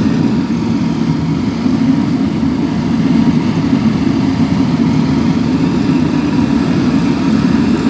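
Walk-behind street litter vacuum running loudly and steadily, its engine and suction fan working without a break.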